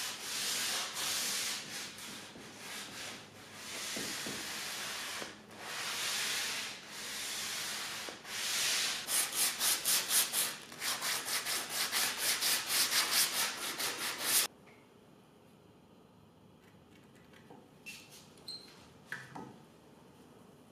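Hand-sanding red oak with sandpaper wrapped around a sanding sponge: long hissing back-and-forth strokes, then quick short strokes. The sanding stops suddenly about two-thirds of the way through, and a few faint clicks follow.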